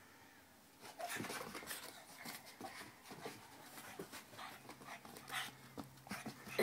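A pug panting and scuffling about during play, with scattered small knocks and rustles starting about a second in.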